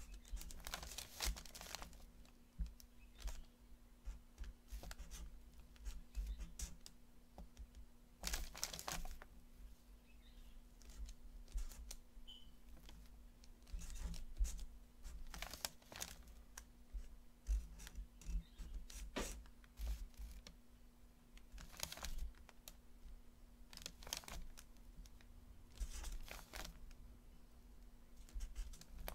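Marker drawing on paper: short, irregular scratchy strokes of the tip across the sheet, over a faint steady hum.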